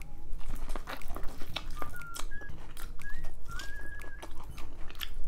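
Close-miked chewing of boiled corn kernels: a run of small wet mouth clicks and smacks. A faint, thin, wavering whistle-like tone comes and goes several times behind it.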